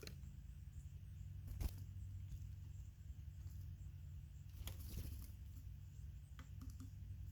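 Small birds working a feeder: a few sharp taps and clicks, one about a second and a half in and a cluster around five seconds in, over a steady low outdoor rumble.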